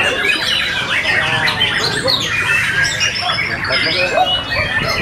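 White-rumped shamas (murai batu) singing in a dense, overlapping chorus of quick, varied whistled phrases, the caged contest bird's song mixed with those of the competing birds around it.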